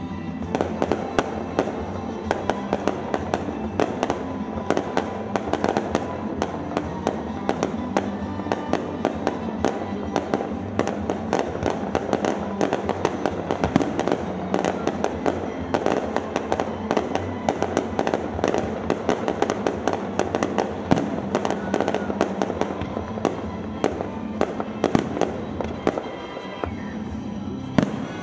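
Fireworks display: rapid bangs and crackling, many reports a second without a break, over music playing in the background. The bursts thin out near the end.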